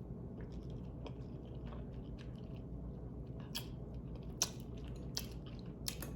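A person chewing a mouthful of spicy ramen noodles close to the microphone: wet mouth clicks and smacks, a few louder ones in the second half, over a steady low hum.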